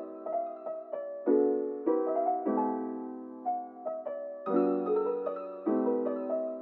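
Piano music: chords and single notes struck one after another, each dying away before the next.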